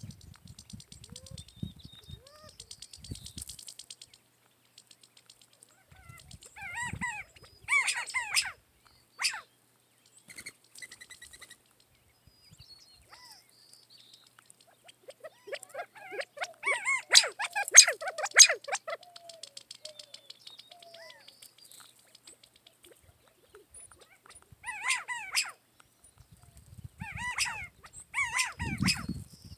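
Quail calling while feeding: bursts of short chirps and soft calls, heaviest and loudest about halfway through, with quieter bursts before and near the end.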